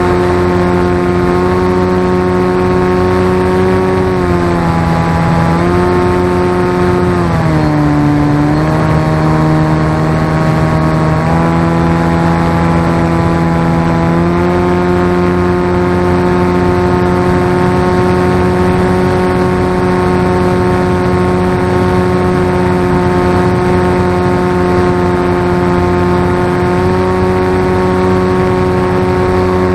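Motor and propeller of a BlueWing RC flying wing, heard from a camera mounted on the wing, running at a steady pitch over airy rushing. A few seconds in the pitch sags and stays lower for several seconds as the throttle is eased, then rises back in two steps to a steady cruise.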